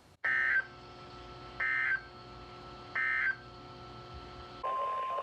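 NOAA Weather Radio Emergency Alert System data bursts: three short, raspy squawks of digital SAME data about 1.4 s apart, the end-of-message signal of the finished warning. Near the end a steady single-pitch alert tone starts, the weather radio's warning alarm tone, heard through the radio's speaker.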